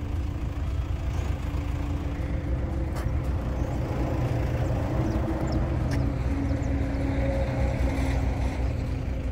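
Steady engine hum of an idling vehicle, with a low wind rumble on the microphone.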